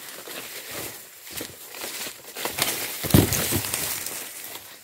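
Footsteps through low undergrowth and dry leaf litter, with irregular rustling and crackling of plants and one heavier thump about three seconds in.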